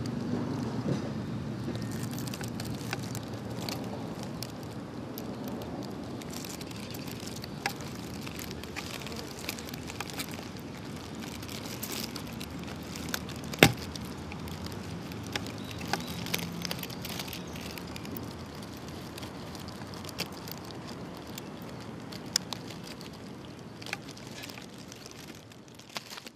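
Steady outdoor background hiss and low rumble with scattered small clicks and knocks from a handheld camcorder being handled, the loudest a single sharp knock about fourteen seconds in as the camera moves.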